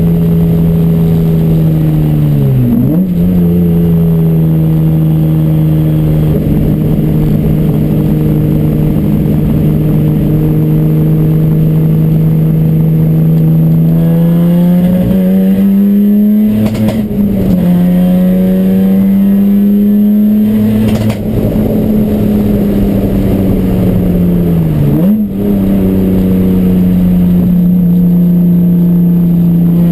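Race car engine running at steady revs while misfiring. The note holds mostly level, dips sharply and recovers about 3 seconds and again about 25 seconds in, and climbs and wavers through the middle.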